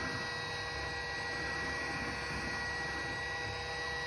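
Steady electrical hum and hiss with a faint high whine, unchanging throughout.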